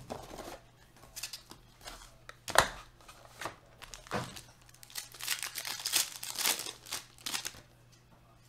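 Foil wrapper of a Panini football card pack crinkling and tearing as it is handled and opened, with a few sharp knocks, the loudest about two and a half seconds in.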